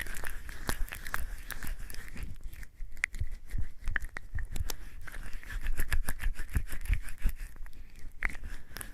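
Hands being lathered and rubbed together with bar soap, a steady run of wet squelching and crackling of foam. It briefly eases about three seconds in and again near the end.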